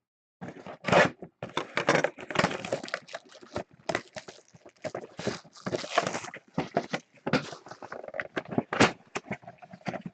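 Trading card packs and cards being handled: irregular crinkling and scraping of wrappers and cards, with a few sharper crackles, the loudest about a second in and near the end.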